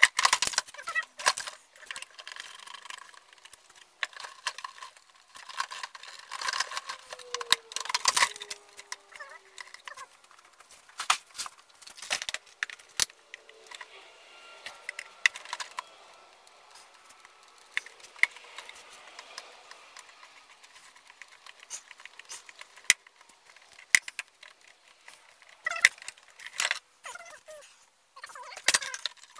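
Scattered clicks, knocks and clatter of tools and parts being handled, moved and set down on a wooden workbench, with quiet shuffling between the knocks.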